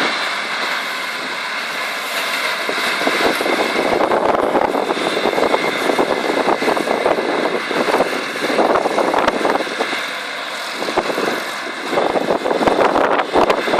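Samwon SRB100 round baler working behind a running tractor: a steady machine whine with continuous rattling and clattering, which eases briefly near the end before picking up again.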